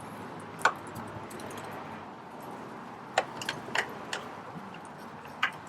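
Hand tools clicking and tapping on metal while screws are tightened by hand on the carburetor of a Redmax EBZ7500 backpack blower. There are a handful of sharp, short clicks: one about half a second in, a quick cluster of four around the middle, and one more near the end.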